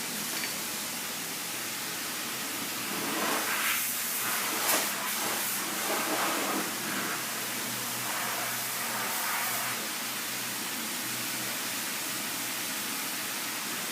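Sandpaper on a Curvecaster sanding board rubbing across a primed car body panel in hand block sanding: a steady hiss, with a few louder strokes in the middle.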